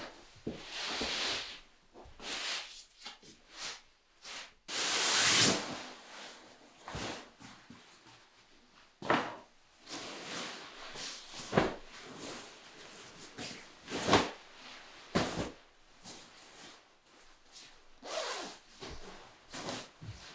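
A sleeping bag being unpacked and spread out by hand: a series of fabric rustles and swishes, the loudest and longest about five seconds in, with a few sharper knocks in the second half.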